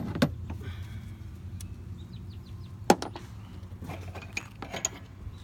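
A few sharp metallic clicks and knocks from tools and parts being handled in a car's engine bay during a spark plug and ignition coil job, the loudest about three seconds in, over a steady low hum.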